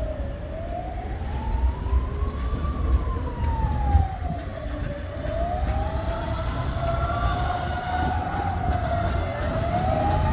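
An emergency vehicle's siren wailing, its pitch slowly rising and falling about every four to five seconds, with a second siren tone overlapping in the middle, over the low rumble of street traffic.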